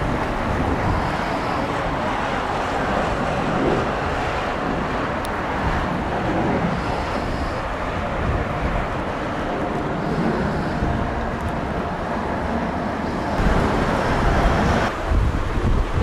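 Strong wind buffeting the microphone over the steady rumble of a Japan Airlines Boeing 787's jet engines as the airliner rolls along the runway after landing. A harder gust comes near the end.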